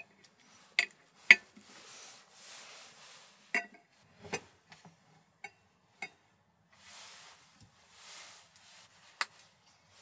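A metal spoon clinking and scraping against a plate while eating: several sharp, separate clinks, with softer scraping between them.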